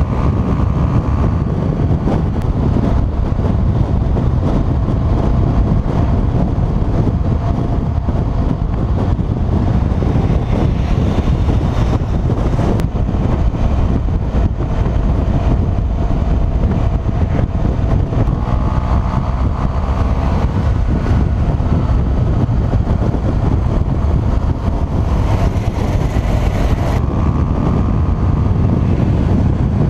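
Steady wind rush on a helmet-mounted camera's microphone as a motorcycle rides at road speed, with the bike's engine running underneath.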